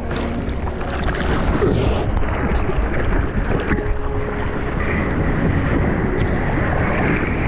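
Sea water rushing and splashing around a board-level action camera as a bodyboarder paddles out through whitewater foam and over small swells.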